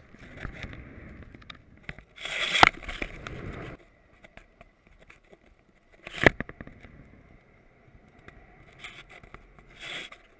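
Wind buffeting and the rig knocking and scraping on a camera hung from a kite line: a loud rush of noise with a sharp knock between about two and four seconds in, another sharp knock about six seconds in, and a shorter rush near the end, over a faint steady high whine.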